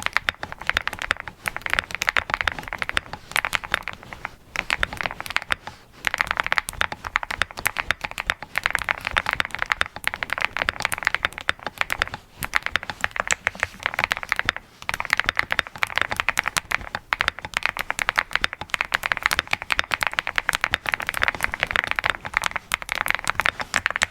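Continuous fast typing on an Angry Miao Cyberboard R4 mechanical keyboard with Red Wine switches and JTK HSA Hyperfuse keycaps: a dense stream of crisp key clacks, broken by brief pauses every few seconds.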